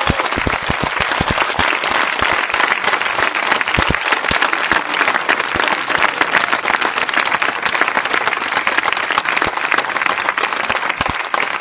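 Large crowd applauding: dense, steady clapping.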